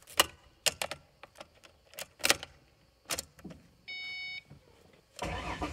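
Keys jangling and a string of sharp clicks inside a car, a short electronic chime about four seconds in, then the car's engine starting up near the end.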